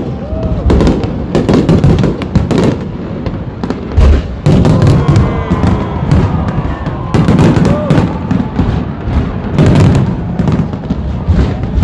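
Fireworks going off in a dense, continuous run of bangs and crackles, with a few short whistling glides among them.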